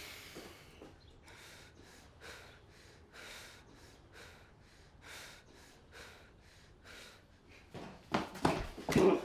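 Heavy breathing, about one breath a second, then near the end a sudden run of loud thumps and scuffling as a fight breaks out.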